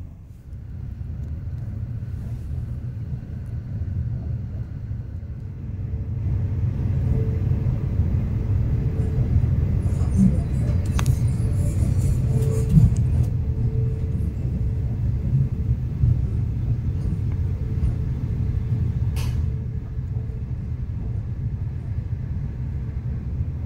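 Cabin running noise of a CR200J Fuxing push-pull train under way: a steady low rumble of wheels on rail that grows louder about six seconds in. A faint steady hum sits over it, with a couple of sharp clicks.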